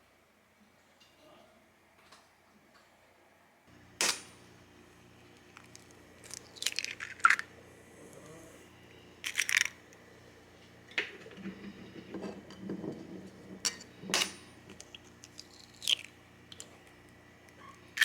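Sharp clicks and light clatters of objects being handled, about a dozen, some in quick clusters, over a steady low hum that starts about four seconds in.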